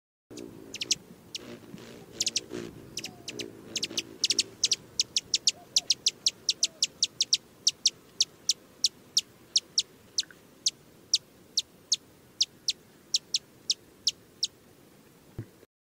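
A hummingbird calling: a long series of sharp, high chip notes, evenly repeated about two to three times a second, with a fainter low-pitched sound under the first few seconds.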